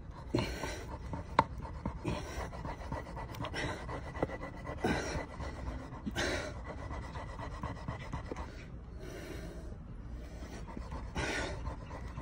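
A man panting heavily with exertion, loud breaths about every one and a half seconds, as he works a stick against a log to start a fire by friction. There is some faint scraping of wood on wood and one sharp tap a little over a second in.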